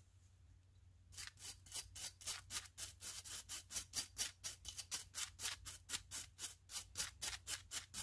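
Small wire brush scrubbing a gas furnace burner in quick back-and-forth strokes, about five a second, starting about a second in, to clear debris from the burner.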